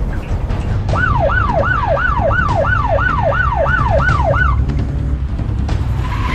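Emergency vehicle siren in a fast yelp, about three sweeps a second, starting about a second in and stopping about three and a half seconds later, over a low steady rumble.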